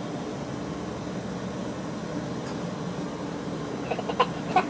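A steady low hum fills most of the stretch. About four seconds in come a few brief squeaky, voice-like sounds and clicks.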